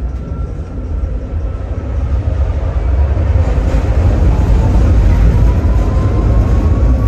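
Tram running on its rails, heard from inside the car: a steady low rumble of wheels on track that grows louder over the first three seconds as it gathers speed, with a faint whine that rises slowly in pitch.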